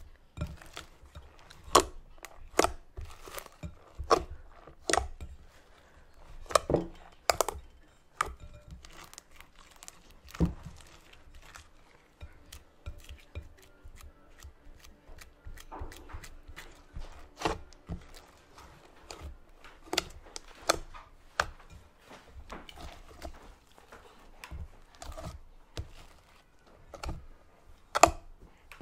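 Hands kneading and squeezing sticky cloud slime (glue slime mixed with instant snow) in a glass bowl, close to the microphone: an irregular run of sharp pops and crackles as the slime sticks and pulls apart.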